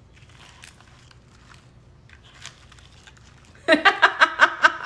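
A spatula stirs crunchy mix-ins (pretzels, chips, marshmallows) through cookie dough in a glass bowl, making faint crinkly scraping. Near the end a woman bursts into laughter in quick rhythmic pulses, the loudest sound.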